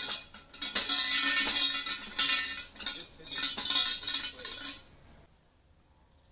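Metallic jingling shaken in four bursts about a second apart, bright and ringing, dying away about five seconds in.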